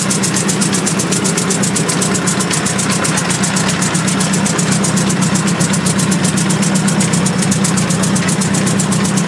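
1918 R & P steel-wheeled tractor's engine idling steadily, with an even, rapid beat of firing strokes.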